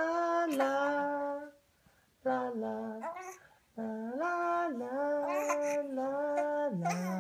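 A young baby's sing-song cooing: long vowel sounds held on steady notes that step up and down in pitch, in three phrases with short breaks, the last one held for about three seconds.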